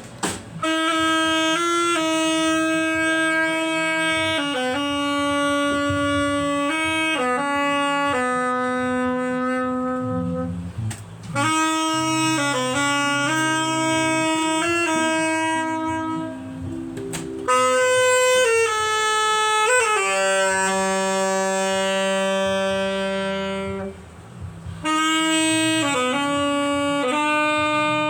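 Instrumental music: a single melody instrument plays a slow line of long held notes, over faint low accompaniment, with short breaks a little before the middle and near the end.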